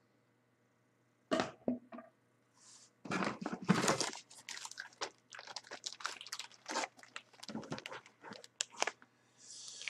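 Cardboard box and a plastic-sleeved instruction manual being handled. Irregular crinkling, rustling and scraping, with a brief rustle near the start and a steady run of crackles from about three seconds in.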